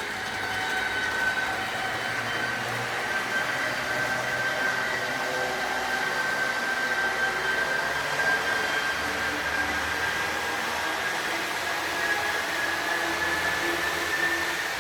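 Sound decoder in an H0 model ICE3 playing the high-speed train's electric traction whine: a steady tone over a hiss, rising in pitch over the last few seconds as the train speeds up.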